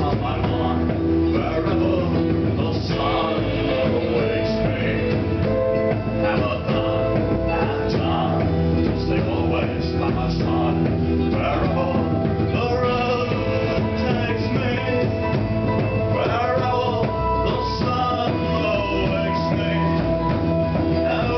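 A small rock band playing live: electric guitar, bass guitar and keyboard, with a singer on a microphone.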